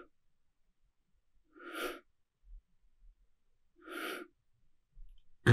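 A person breathing out audibly in short separate pushes about two seconds apart: the staged exhalation of yogic three-part breathing, emptying belly, diaphragm and upper chest in turn.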